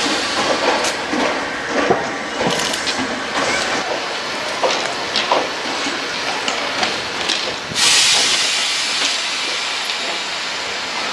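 Railway depot ambience with scattered knocks and clatter. About eight seconds in a loud hiss starts suddenly and slowly fades, like air being vented from a train's brakes.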